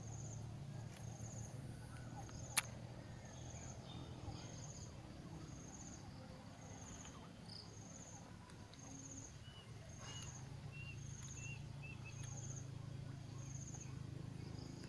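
An insect chirping faintly in an even rhythm, one short high chirp about every second, with a single sharp click about two and a half seconds in.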